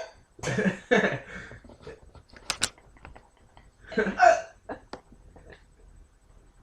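A person hiccuping: two sharp hiccups in the first second and another about four seconds in, with a few faint clicks between.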